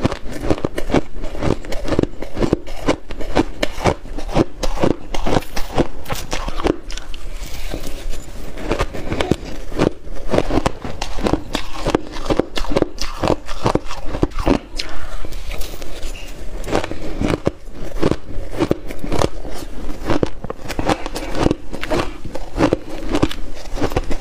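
Dry shaved ice being bitten and chewed close to the microphone: a continuous run of crisp crunches, several a second.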